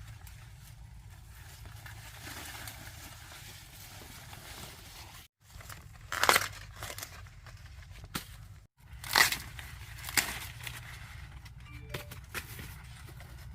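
Ears of corn being snapped off the stalks among dry leaves and husks: a few sharp tearing, crackling rustles, the loudest about six and nine seconds in.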